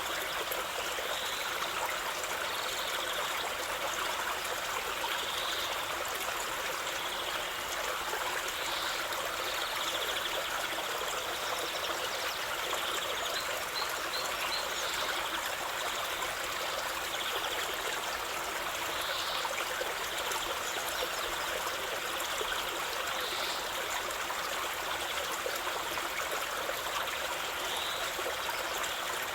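A stream of running water, trickling steadily and without let-up. Faint short high chirps rise above it every few seconds, with a quick run of three about midway.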